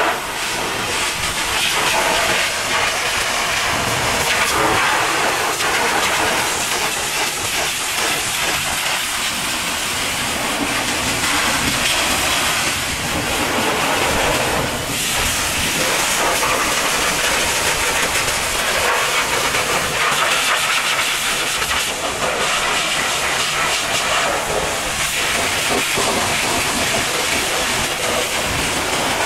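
High-pressure washer jet blasting water against a truck's fuel tank and chassis underside: a steady, loud hiss of spray on metal, with run-off splashing.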